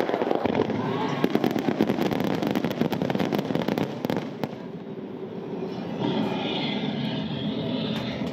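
Fireworks display: a dense, rapid crackle of many small reports from bursting aerial shells and ground fountains for about the first four seconds, then dying away. A steadier, softer noise follows near the end.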